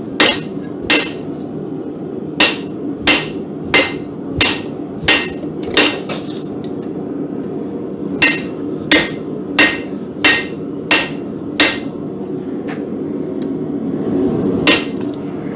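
Blacksmith's hammer striking a mild-steel workpiece on an anvil: evenly paced ringing blows about one and a half a second, in two runs with a pause of about two seconds between them, then a single blow near the end. A steady noise runs underneath.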